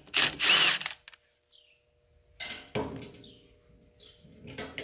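Milwaukee Fuel brushless cordless impact wrench running in one short burst right at the start, on the lug nuts of a rear brake drum. Two quieter knocks follow, with faint bird chirps behind.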